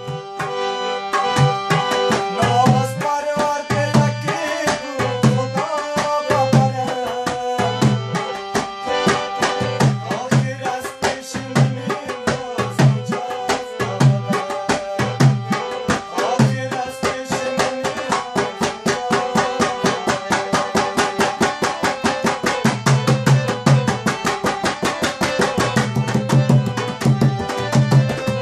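A dholak, a two-headed barrel drum, beats a fast, steady rhythm with deep bass strokes, over the held reed chords and melody of a harmonium.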